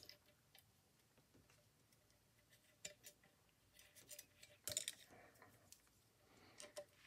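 Mostly near silence, with a few faint, sharp clicks of a small metal screw being handled and fitted into the end gate pivot of an Edison Home phonograph; the clearest click comes a little past halfway.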